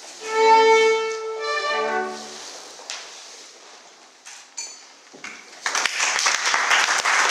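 Recorded tango orchestra music, strings to the fore, playing its last held chords and stopping about two and a half seconds in. After a quieter few seconds, dense clapping, applause from the dancers, starts about six seconds in and keeps going.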